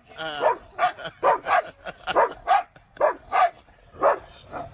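Siberian husky barking and yowling in a fast string of short pitched calls, roughly two to three a second. The first call is longer and wavers in pitch.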